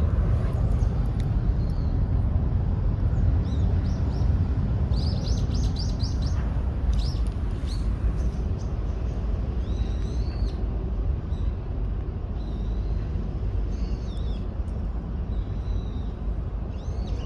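Small birds chirping in scattered short calls, with a quick trill of about six notes some five seconds in, over a steady low rumble.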